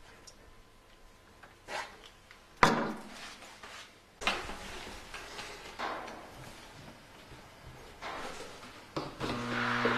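Hollow knocks and clunks of hands working an air stone and airline tubing in an empty plastic DWC bucket, the loudest about two and a half seconds in. Near the end an electric aquarium-style air pump starts with a steady hum.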